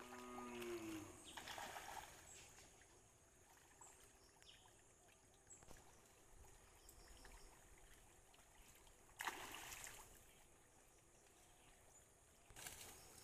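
Near silence: quiet outdoor ambience with a brief voice at the start and a few short rustling noises, the loudest about nine seconds in.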